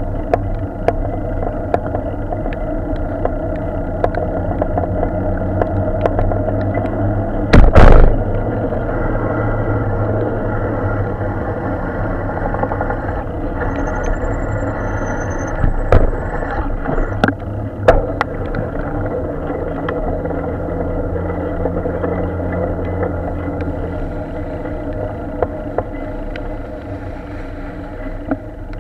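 Riding noise from a bicycle-mounted camera on a wet street: a steady rumble with traffic running alongside, scattered sharp rattles and clicks, and one loud knock about eight seconds in.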